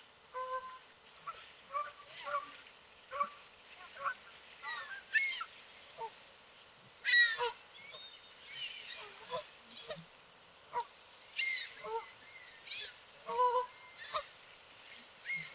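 Several Canada geese honking and calling to each other in a steady run of short honks, one to three a second, some overlapping, a few of them higher and sharper.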